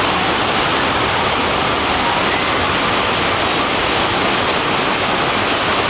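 Steady, loud rushing noise with no breaks or changes, like falling water.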